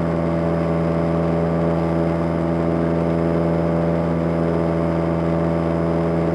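Cessna 172M's four-cylinder Lycoming O-320 engine and propeller droning steadily at climb power.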